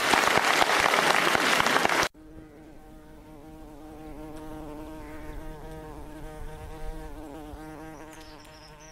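Audience applauding, cut off abruptly about two seconds in. Then a steady insect buzz, much quieter, swells slightly and fades near the end.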